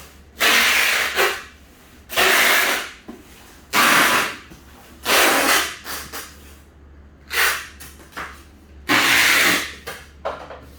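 Six short, loud rasping strokes about one and a half seconds apart, from gift-box packing work, over a low steady hum.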